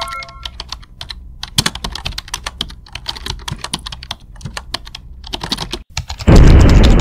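Typing sound effect: rapid, irregular key clicks, several a second. Near the end a loud rushing noise cuts in over the clicks.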